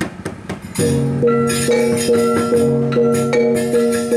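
Balinese gamelan playing: clattering small cymbals at first, then from about a second in, tuned gongs and metallophones struck in a steady beat, a little over two strikes a second, their tones ringing on between strikes.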